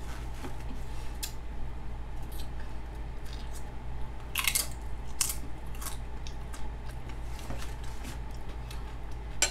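A person eating close to the microphone: a crunchy bite about four seconds in, followed by scattered crunching and chewing sounds, over a steady low hum.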